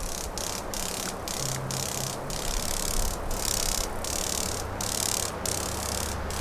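Insects buzzing high and steadily, broken by short gaps about twice a second, over the low steady rumble of a distant diesel freight train's locomotives.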